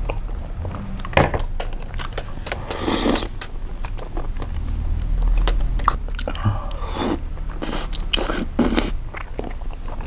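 A man biting and chewing a piece of soy-sauce-marinated salmon, with irregular mouth smacks and clicks.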